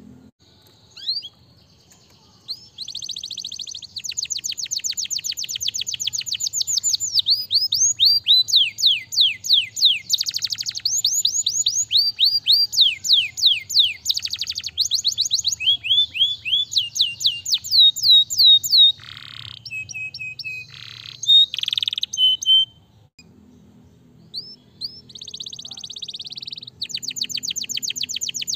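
Domestic canary singing: long runs of rapid trills made of fast repeated falling whistles, in sections that change speed and pitch. Near the end there is a pause of about two seconds before the trilling resumes.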